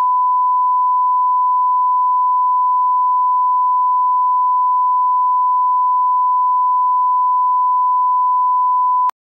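Broadcast test tone played with colour bars: one loud, steady pure pitch, cutting off abruptly with a click near the end.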